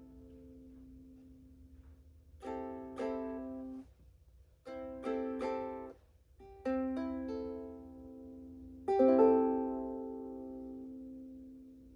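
Ukulele chords strummed in short riff phrases: a few strums at a time, some damped off short. The loudest chord, about three-quarters of the way through, is left to ring and fade.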